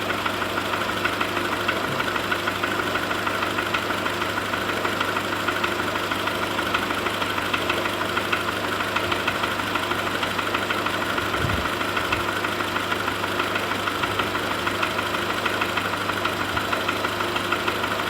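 Volkswagen Golf IV 1.4 petrol four-cylinder engine idling steadily while cold, with a fast, even ticking over its running: the cold-engine noise being diagnosed.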